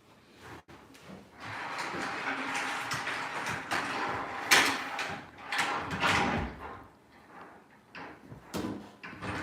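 Wood scraping and sliding against wood during stair carpentry work, in several uneven strokes, the loudest about halfway through.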